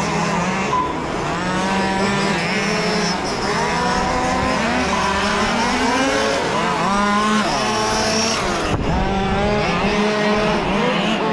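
Several large-scale RC Formula 1 race cars lapping the track together, their engines overlapping and repeatedly rising and falling in pitch as they accelerate and slow.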